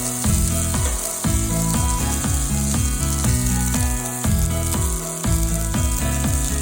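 Food sizzling in a hot frying pan, a steady hiss, under background music.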